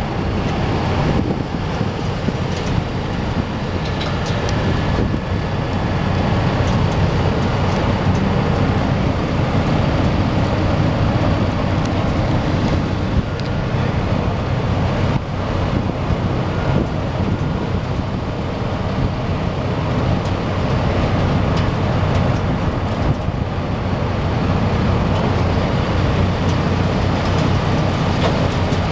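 Steady low engine rumble, with a few faint clicks.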